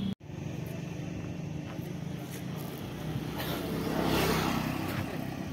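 A motor vehicle running with a steady low engine hum, and a louder rushing swell of noise about four seconds in.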